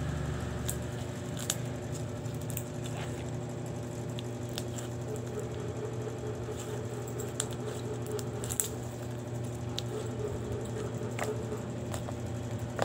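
Homemade fluffy slime being stretched and squeezed by hand, giving faint scattered clicks and small pops rather than loud squelches, over a steady background hum.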